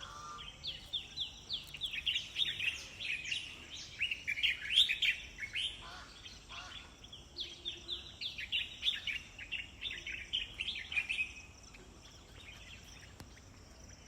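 Birds chirping: rapid runs of short, high chirps that sweep downward in pitch, coming in bursts and thinning out after about eleven seconds.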